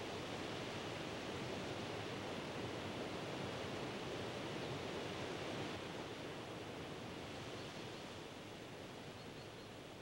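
Steady outdoor background noise: an even rushing hiss with no distinct events, easing a little in the second half.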